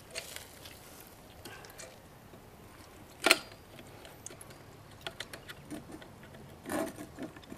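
Small metal clicks and knocks of scooter parts being handled and fitted, a peg or axle boss against the wheel hardware, with one sharp, louder click about three seconds in and a cluster of light ticks later.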